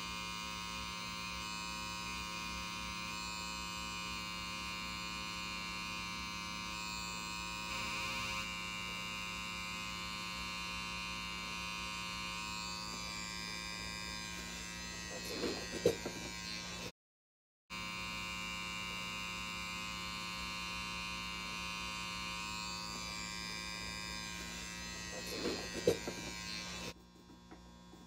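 Electric tattoo machine buzzing steadily as it runs, in two long stretches split by a brief cut. Each stretch ends with a short, sharp louder sound.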